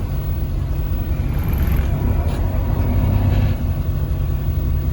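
Boat engine running steadily: a constant low hum with some hiss over it.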